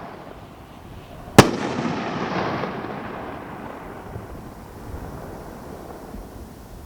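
Red Rhino 'Roping' consumer firework: a single loud bang about a second and a half in, followed by a noisy tail that fades away over the next few seconds.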